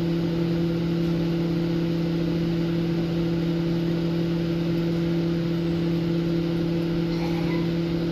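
Microwave oven running: a steady, even hum from its magnetron and fan.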